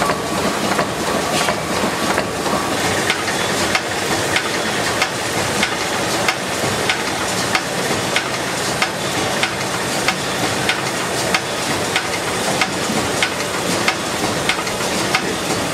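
Two-cylinder compound steam engine running steadily: a continuous hiss and mechanical clatter from the working rods and valve gear, with a sharp click about every two-thirds of a second.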